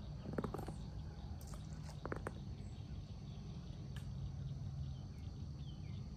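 Pondside outdoor ambience: a bird repeating short falling chirps over faint steady insect sounds and a low rumble. Two brief clusters of clicks come about half a second in and again about two seconds in.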